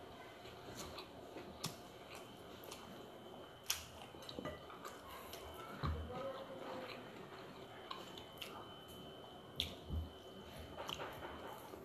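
Quiet chewing as rice is eaten by hand, with scattered small clicks and a couple of soft thumps. A faint steady high whine sits underneath.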